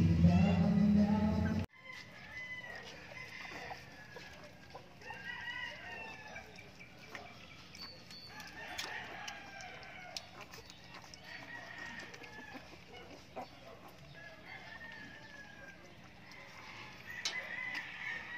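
Background music cuts off abruptly about two seconds in. After that, chickens cluck and a rooster crows in short calls every few seconds, with a few faint clicks.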